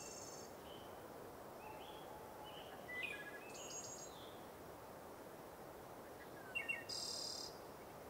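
Small songbirds calling faintly: scattered short high chirps and thin, very high calls, clustered about three seconds in and again near the end, over a faint steady hiss of forest ambience.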